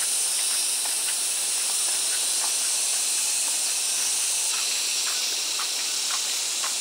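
A steady high-pitched hiss with scattered faint ticks.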